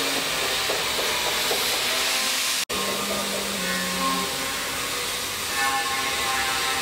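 Steady hissing noise with background music notes under it. The sound drops out for an instant about a third of the way in.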